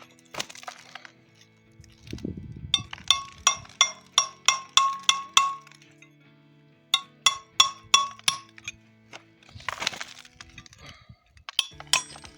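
Two runs of rapid metal-on-metal strikes, about three a second, each ringing out with the same bell-like tone, as from hammering on a steel brake part. A short rush of noise comes near the start and again about ten seconds in, over steady background music.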